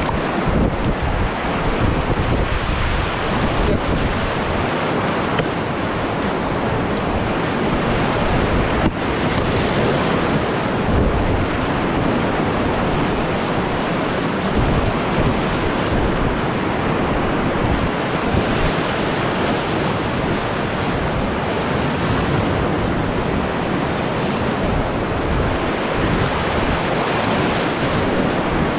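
Whitewater rapids of a rocky river, a loud steady rush of water heard from a kayak running through them, with some wind on the microphone.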